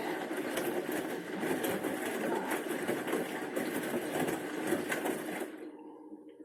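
Bosch Series 6 washing machine running a wash: the motor turns the drum with the load tumbling, a steady churning with quick irregular knocks, which stops abruptly about five and a half seconds in, leaving a faint hum.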